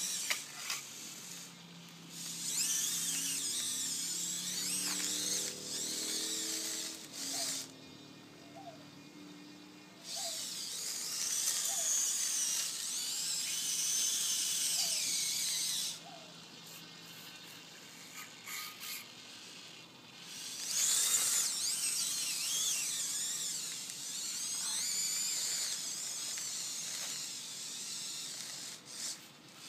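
Small electric servo motors and plastic gearing of a radio-controlled Bruder CAT 216B toy skid steer loader whining as it drives. There are three bursts of several seconds each, the pitch wavering up and down with the throttle, with quiet pauses between them.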